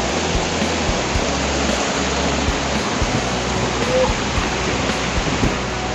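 Small waterfall pouring over rock into a pool: a steady rushing of water.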